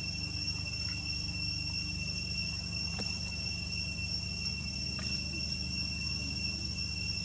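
Steady high-pitched insect drone that holds one unchanging pitch throughout, over a steady low rumble, with a couple of faint clicks around the middle.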